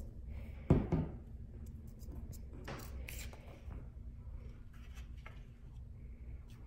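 A single loud thump about a second in, then soft paper rustling and light taps as a glued paper cut-out is laid onto construction paper and pressed flat by hand, over a low steady room hum.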